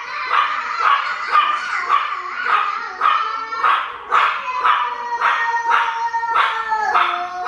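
Small chihuahuas barking and yipping over and over, about two barks a second, with a long high whining howl running under them that drops in pitch near the end.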